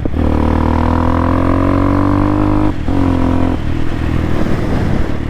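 CSC TT250 motorcycle's single-cylinder engine running under throttle, its pitch creeping slowly upward, with a brief dip a little under three seconds in. After about three and a half seconds the steady engine note drops away into a rougher, noisier sound.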